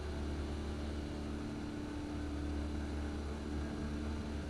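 Cessna 172's engine and cruise-pitch propeller heard inside the cabin during a climb: a steady drone with a low hum and a few constant higher tones.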